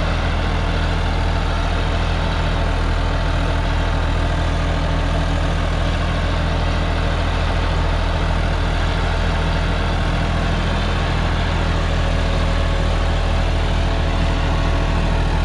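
John Deere 5405 tractor's diesel engine running steadily under load, driving a 10-foot rotavator that is tilling the soil, with a deep, even hum.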